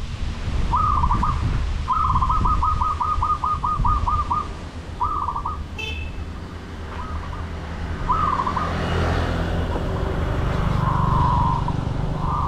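Wind buffeting the microphone with a low rumble, over a bird calling: short groups of quick repeated notes, and near the start a longer run of about a dozen notes, each rising and falling in pitch. One sharp click about six seconds in.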